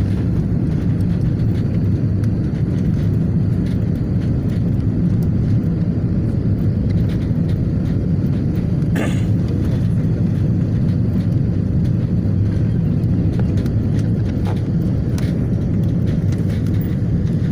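Steady low rumble of engine and airflow noise inside an Airbus A320-family airliner's cabin on its low approach to land. A brief click comes about nine seconds in.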